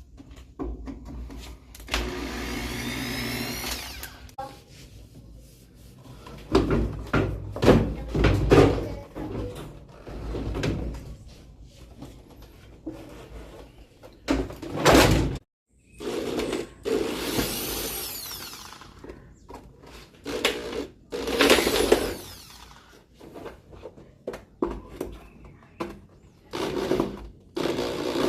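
Cordless screwdriver or drill running in short bursts, its whine rising and falling as screws are driven out, among repeated knocks and clatter of loose parts being handled.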